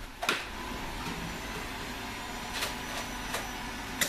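Foam-dart blasters in a Nerf fight: a few sharp clacks of shots, one just after the start and two more in the second half, over a steady mechanical whir.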